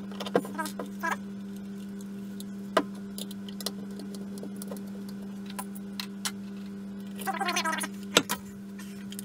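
Small metal screws clicking and a screwdriver working screws into the plastic lid of a vacuum motor casing, in scattered ticks with a busier rattling stretch near the end and one sharp click just after it, over a steady low hum.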